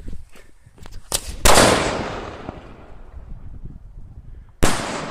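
A Lidu 4-inch willow aerial shell firing. The mortar lift gives a loud bang about a second and a half in, and the shell bursts in the sky about three seconds later. Each bang is followed by a long fading echo.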